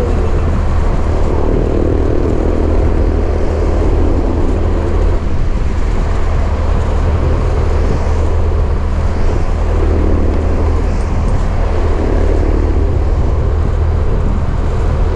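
A motorcycle riding along at a steady speed: the engine runs evenly under a heavy rush of wind on the microphone.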